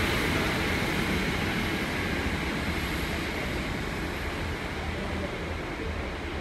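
Great Western Railway Class 150 diesel multiple unit moving away, its underfloor diesel engine and wheel noise growing gradually fainter as it recedes.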